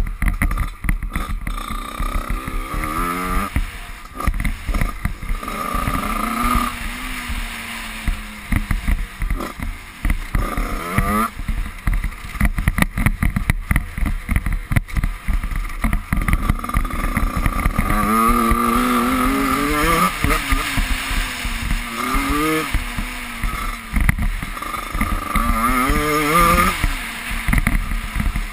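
Dirt bike engine heard from on board while riding a motocross track, its pitch climbing and dropping repeatedly as the throttle opens and closes, over heavy wind buffeting on the microphone.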